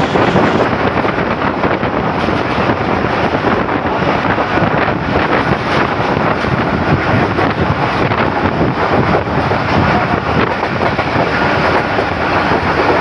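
Passenger train running: a loud, steady rush of wheel and wind noise, with wind buffeting the microphone.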